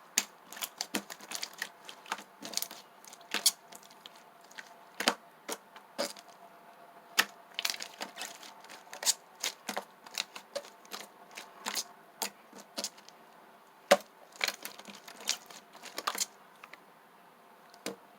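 Slime being squeezed and pressed by hand, giving irregular sharp clicks and pops of trapped air, several a second, some much louder than others.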